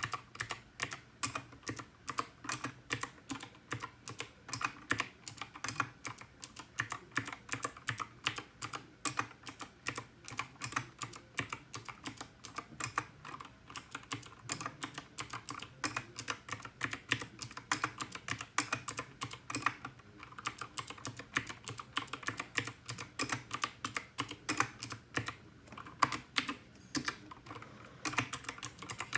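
Typing on a GK61 mechanical keyboard fitted with clicky Gateron Blue switches: a steady run of sharp keystroke clicks, several a second, broken by a few brief pauses.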